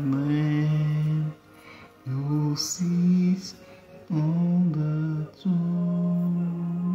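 A man singing a slow worship song alone and unaccompanied, holding long drawn-out notes with short pauses between them.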